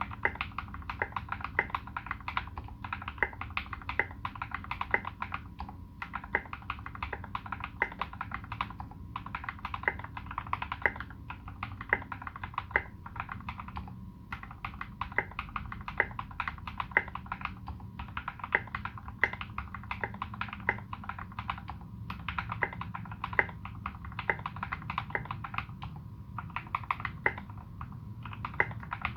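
Typing on a Space65 custom mechanical keyboard with modded Turquoise Tealios linear switches, SA profile keycaps and tuned Cherry screw-in stabilizers. The keystrokes come in a steady run, several a second, with a few brief pauses.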